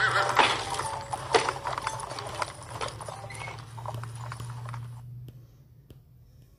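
Clip-clopping horse hooves on a film soundtrack, a run of sharp knocks that cuts off suddenly about five seconds in, leaving only a few faint clicks. A steady low hum runs underneath.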